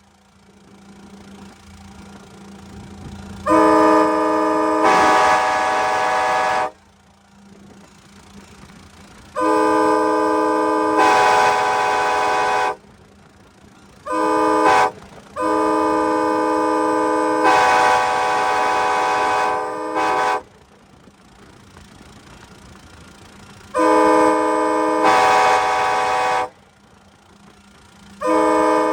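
Nathan K5LA five-chime locomotive air horn, a 1994 Graham White rebuild, sounding a series of loud chord blasts: one of about three seconds, one of about three and a half, a short toot, a long blast of about five seconds, another of about three seconds, and a last one starting near the end. A much fainter rushing noise fills the gaps between blasts.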